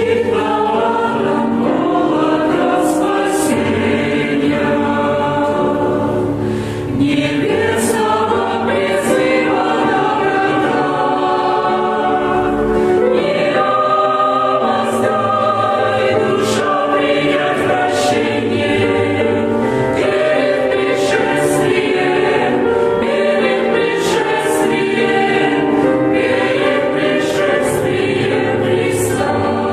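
Church choir singing a Russian-language hymn in held, sustained chords.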